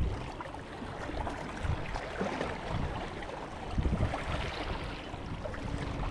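Wind buffeting the microphone in several short low gusts, over a steady wash of open water.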